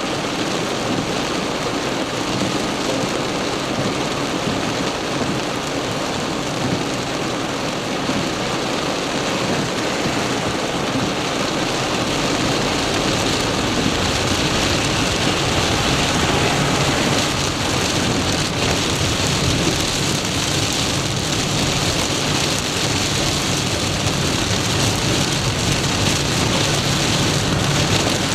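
Torrential rain drumming steadily on a car, heard from inside the moving car, growing louder about halfway through.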